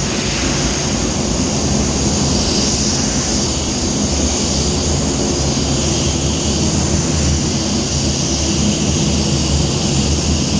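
Steady rush of air from a handheld air blower drying a waterborne basecoat, driving the water out of the paint before clearcoat, over a steady low hum.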